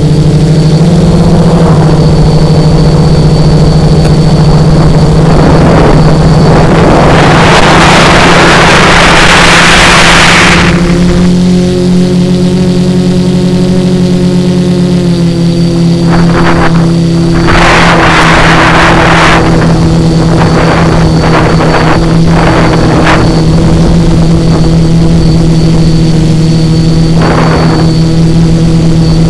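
Three Emax XA2212 980 KV brushless motors and propellers of a tricopter buzzing steadily in flight, loud and close on its onboard camera, the pitch shifting with throttle. Bursts of wind rush swell for a few seconds about a fifth of the way in and again past halfway, with shorter gusts after.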